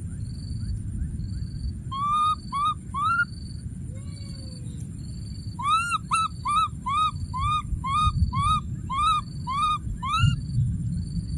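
Baby macaque crying: four short rising-then-falling calls, then after a pause a run of about ten more, two or three a second. Under them, a high chirp repeats steadily about twice a second and a low rumble goes on throughout.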